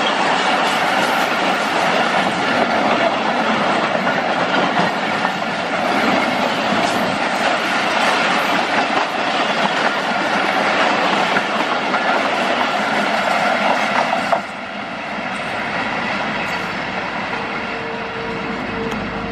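Pakistan Railways passenger coaches rolling slowly past close by, their wheels clattering steadily over the rail joints. About fourteen seconds in the sound drops suddenly, and the train runs on fainter as it moves away.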